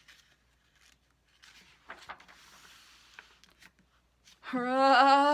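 Soft papery rustling of a picture-book page being handled and turned. Then, near the end, a woman's voice holds a long, steady 'aaah', the wind-up to an acted-out sneeze.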